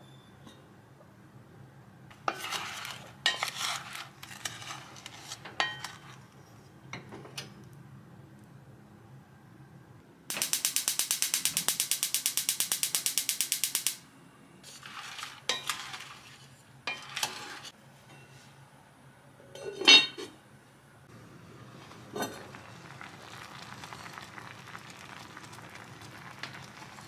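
Kitchen sounds of breakfast being made: dishes, glass and cutlery clinking and knocking, and a small appliance running for about four seconds with a fast, even rattle. A single loud knock comes about twenty seconds in, then a steady sizzle of food starting to fry near the end.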